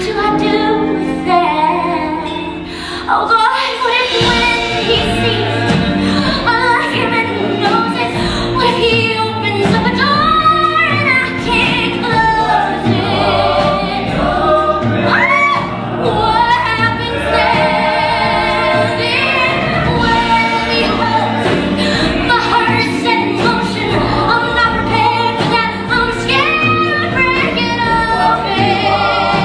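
Musical theatre cast singing together with a live band, several voices over a steady beat.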